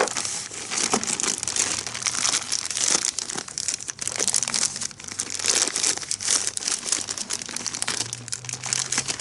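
Black plastic courier mailer bag crinkling and crackling as hands pull it open around the folded fabric inside, a steady run of sharp crackles throughout.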